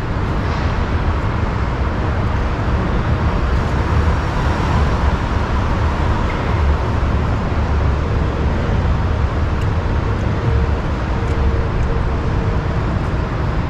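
Steady city traffic noise: road vehicles passing on busy streets, an even rumble heaviest in the low end.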